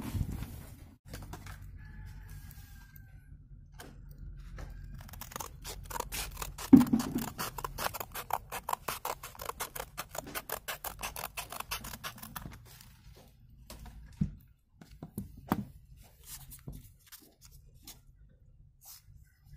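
Scissors cutting a strip of sandpaper: a quick, even run of short cutting sounds lasting several seconds, mid-way through, starting just after one sharp knock. Before and after, scattered clicks and knocks of small parts being handled.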